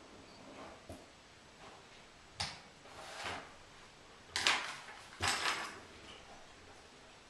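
A small click, then four short scraping, sliding sounds, each about half a second with a sharp start; the last two, close together, are the loudest.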